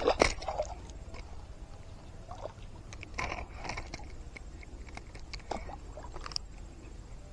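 Water splashing and sloshing in short bouts, the strongest right at the start and more around the middle and near the end: a hooked snakehead thrashing at the surface.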